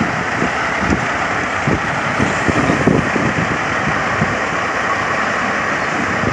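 Diesel engine of a semi truck running at idle as the truck reverses slowly into a loading-dock space.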